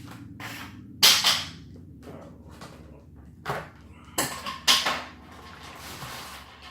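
Handling of boxed aftermarket camshafts and their wrapping: a few short knocks and rustles, the loudest about a second in and more around three and a half to five seconds in, over a low steady hum.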